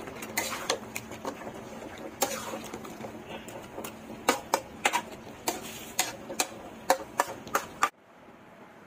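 Metal spatula knocking and scraping against a metal pan as chunks of beef are stirred and dry-fried in thick masala for beef kosha, with irregular sharp clacks several times a second. The stirring cuts off suddenly near the end.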